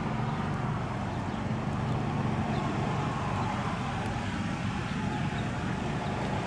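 A motor vehicle engine idling steadily, a low even hum.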